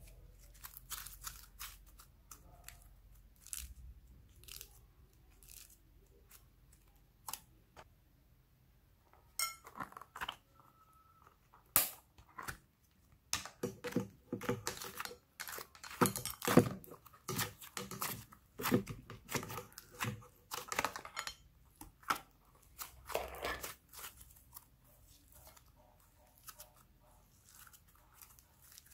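Slime being stretched, squeezed and pressed by hand, making sticky clicks and crackles. After a couple of sharper snaps, the crackling turns dense through the middle while pink slime is worked in a plastic tray, then thins out again.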